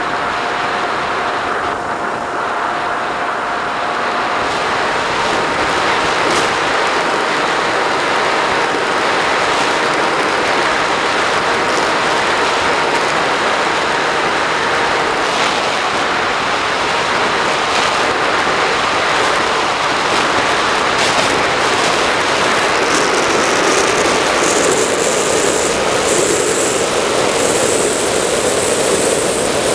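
Onboard sound of a Bixler RC glider in flight: its electric pusher motor and propeller whining under a loud rush of wind over the camera's microphone. The motor pitch dips and rises again about two-thirds of the way through.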